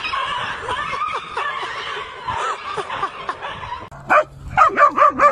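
A dog yipping and whining over a busy background. About four seconds in it changes to a quick run of loud, high-pitched cries, several a second, from a young animal.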